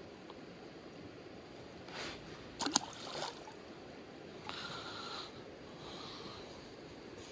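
Shallow creek water running steadily, with a short splash and a couple of sharp knocks about two and a half seconds in as a trout is let go back into the water.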